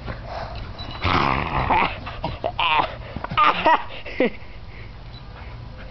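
Dogs growling and whining in play while tugging on a rope toy: a string of short calls that bend and fall in pitch, from about a second in until just past four seconds.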